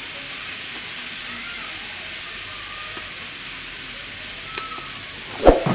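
Noodles and vegetables sizzling steadily in a hot pan while being stir-fried, with a single knock of a utensil against the pan near the end.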